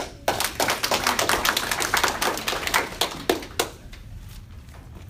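Small audience applauding: a burst of quick, overlapping handclaps lasting about three and a half seconds, then dying away.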